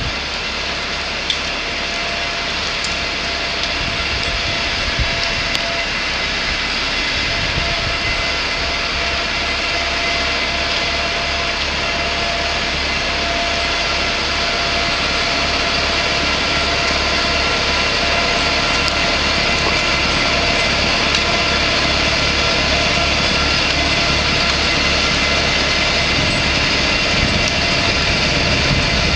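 Kubota B2620 compact tractor's three-cylinder diesel engine running steadily under load, gradually growing a little louder, with a steady whine over the engine note.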